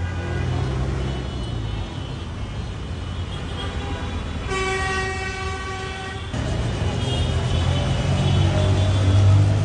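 Steady low rumble of vehicles, with a horn held for about two seconds midway.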